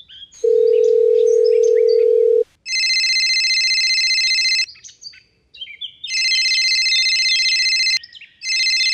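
A steady single tone like a telephone dial tone for about two seconds, then a telephone ringing in rings of about two seconds with short pauses between them: two full rings, and a third starts near the end. Birds chirp in the gaps between the rings.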